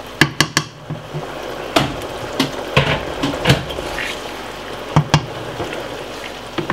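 Wooden spoon stirring a pan of stew sauce just topped up with boiling water. The liquid bubbles steadily and the spoon knocks against the pan a dozen or so times.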